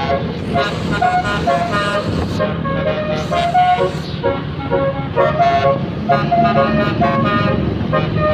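Indonesian telolet bus horn playing a melody of short pitched notes that step up and down without pause, over the low steady run of the bus engine.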